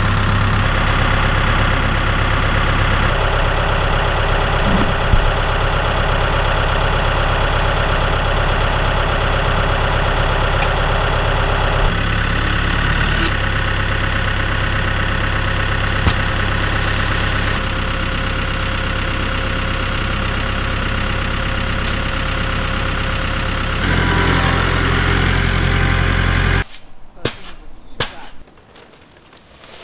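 Compact tractor engine idling steadily. Its sound shifts slightly several times. About 27 seconds in it drops away to much quieter surroundings with a few faint knocks.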